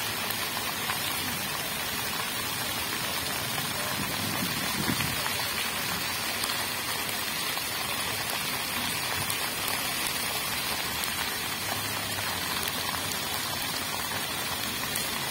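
Dozens of jets of a pavement-level floor fountain spraying up and falling back onto wet paving stones: a steady, dense hiss of splashing water, like heavy rain.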